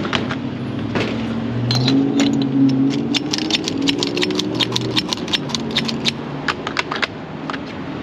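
Gas-pump nozzle and hose being handled and pushed into a car's fuel filler neck: a long run of irregular clicks, knocks and rattles, over a low steady hum.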